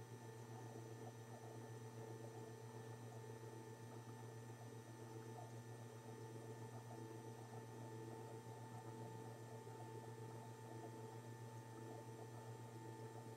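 Faint, steady electrical mains hum, unchanging throughout, with no other distinct sound.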